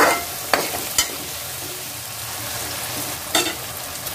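Sliced onions and tomatoes sizzling in oil in a pan, stirred with a spatula that scrapes and knocks against the pan a few times.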